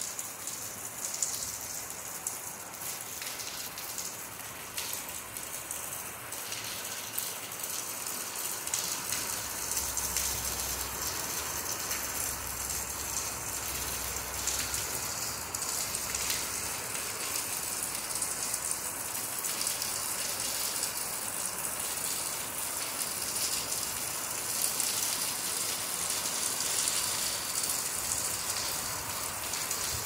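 Steady rain falling on palm fronds and the ground: an even hiss with many small drop ticks.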